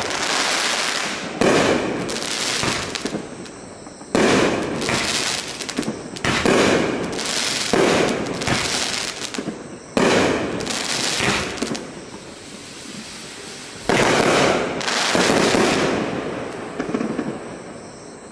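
A 23-shot consumer firework cake firing: about ten shots go off in quick succession, each sudden bang followed by a second or two of fading crackle, with a pause of about two seconds shortly before the last volley and the sound dying away near the end.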